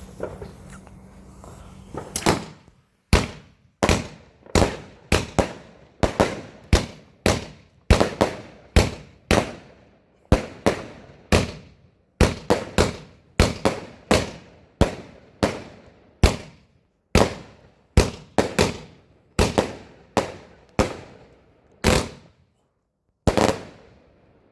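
Fireworks going off in a rapid series of some three dozen sharp bangs, one or two a second, each with a short echoing tail. They start about two seconds in, and one last bang follows a short gap near the end.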